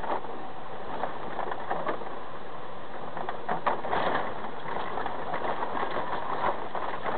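Steady driving noise from inside a vehicle's cab, engine and tyres on a rain-wet road, with a few faint knocks.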